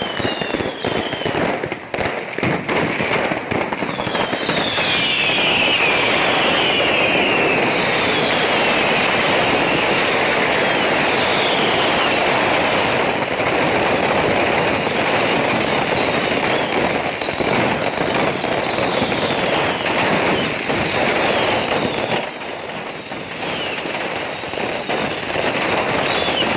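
A kiosk's whole stock of fireworks going off at once in a fire: a dense, continuous barrage of crackling and popping bangs, laced with many short whistles falling in pitch. The barrage thickens about four seconds in and eases briefly near the end.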